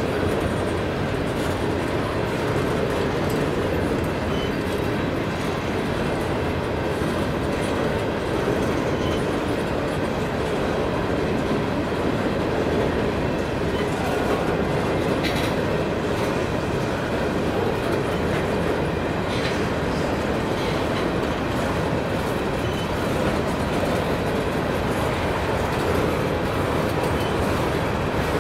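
Empty covered grain hopper cars rolling past on steel rail, with a steady rumble and clickety-clack of wheels over rail joints. Two short sharp clanks come about halfway through and again a few seconds later.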